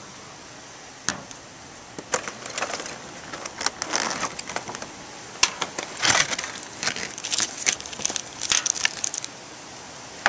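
Clear plastic packaging crinkling, rustling and clicking in irregular bursts as a boxed model airliner is unpacked, over a steady background hiss.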